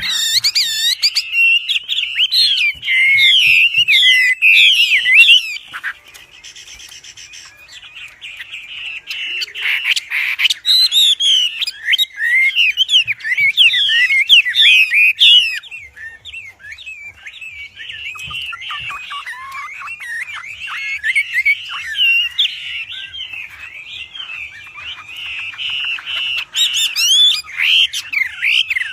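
Wambi songbird singing continuously and loudly: a rapid, unbroken stream of varied whistled notes and glides, with a quieter patch a few seconds in before the full song resumes.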